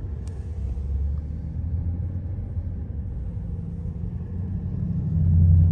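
Car engine and road noise heard from inside the cabin in slow-moving traffic: a steady low rumble that grows louder near the end.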